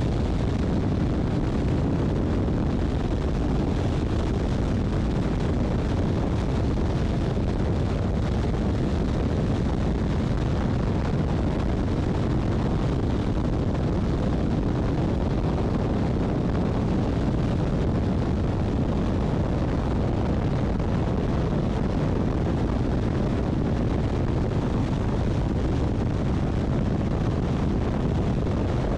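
Steady, heavy wind noise rushing over a camera strapped under the wing of an agricultural airplane in flight, with the plane's own noise blended in.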